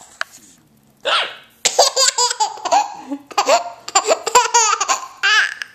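A woman hiccups about a second in, and a baby laughs at it in repeated bursts of belly laughter.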